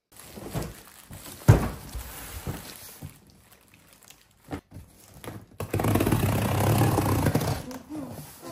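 Large cardboard shipping box being handled and opened: a few sharp knocks and thumps on the box, then about two seconds of rustling, tearing noise near the end as the taped flaps are pulled open.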